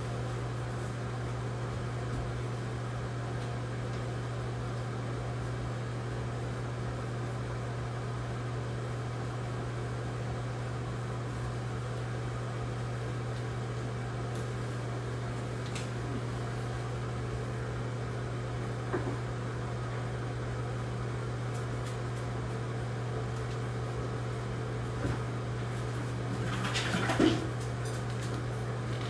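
A steady low mechanical hum, like a fan or motor running, with a few faint handling clicks and a brief louder rustle near the end.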